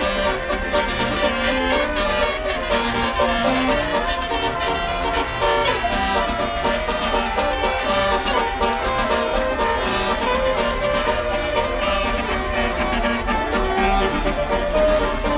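Basuri telolet bus horn playing a melody in long held notes that step from pitch to pitch without a break, over a low steady rumble.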